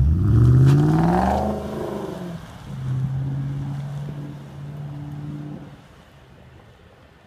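Volkswagen Touareg SUV's engine accelerating hard from a standstill: the engine note rises steeply for about two seconds, then drops to a lower, steadier note and fades about six seconds in as the vehicle pulls away.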